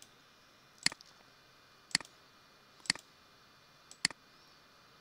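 Computer mouse button clicking four times, about once a second, over a faint steady hiss.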